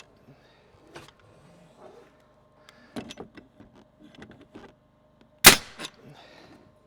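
A nail gun fires once, a loud sharp shot near the end, driving a nail into a composite fascia board, followed by a smaller knock. Light clicks and knocks of handling the board and tool come before it.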